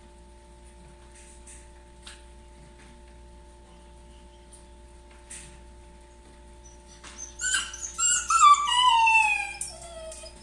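Shiba Inu whining: after a quiet stretch with a few faint ticks, a run of loud, high-pitched cries starts about three-quarters of the way in, each sliding downward in pitch. It is the distressed crying of a dog left home alone and waiting for its owner.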